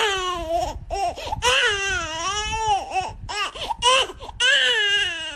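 Loud baby-like crying: a run of long, wavering wails, each rising and falling in pitch, broken by short gaps.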